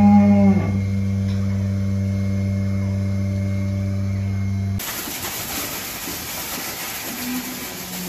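A cow gives a short moo right at the start over a steady low mechanical hum. About five seconds in the hum cuts off and a high-pressure water spray hisses.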